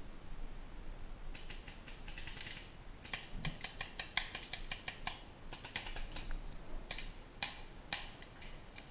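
A run of sharp, irregular clicks and snaps, at times several in quick succession, starting about a second in and going on until near the end.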